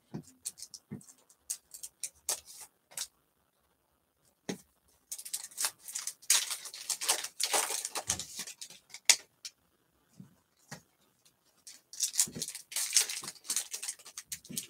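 Foil wrapper of a Bowman baseball card pack crinkling and tearing as it is opened by hand, in short crackly bursts with scattered small clicks from handling the pack and cards.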